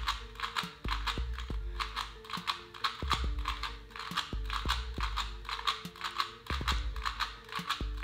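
Plastic Rubik's Cube layers being turned over and over, a quick irregular run of clicks several times a second, over background music.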